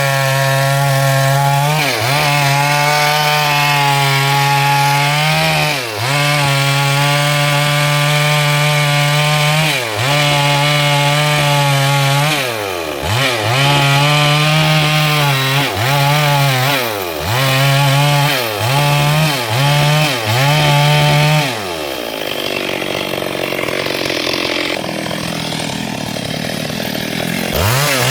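Stihl MS382 two-stroke chainsaw cutting through wood at full throttle, its engine pitch dipping briefly now and then and several times in quick succession in the middle. Near the end it drops to a lower, rougher idle for about six seconds, then revs up again.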